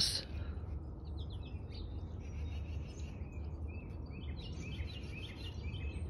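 Small songbirds calling and singing in short, faint chirps and quick runs of notes, over a steady low background rumble.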